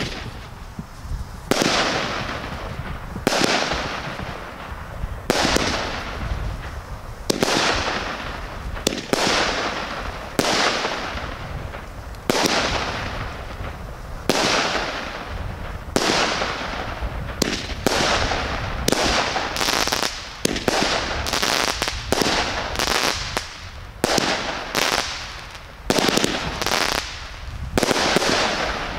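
Hestia Shine Perdition firework firing a long series of shots. Each sharp report is followed by a fading rush of noise. The shots come about every two seconds at first and speed up to roughly one a second in the second half.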